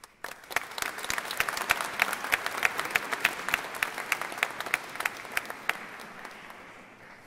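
Audience applauding, with a few sharp claps from someone close by standing out above the rest. The applause starts just after the opening and dies away over the last second or two.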